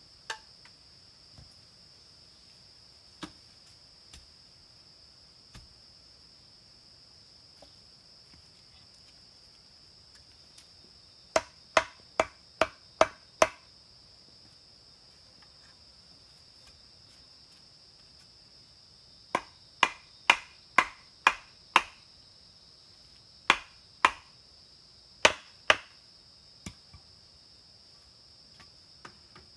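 Machete chopping bamboo: sharp, hollow-ringing strokes in two quick runs of about six, roughly two or three a second, then four more spaced strokes. A steady high insect drone runs underneath.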